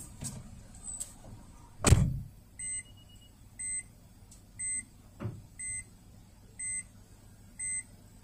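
A heavy thump about two seconds in, then six short electronic beeps about a second apart, with a lighter knock among them.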